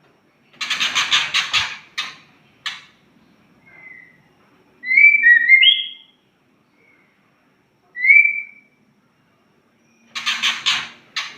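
White-rumped shama (murai batu) calling: harsh, raspy rattling bursts near the start and again near the end, with short clear whistled phrases gliding around a high pitch in between.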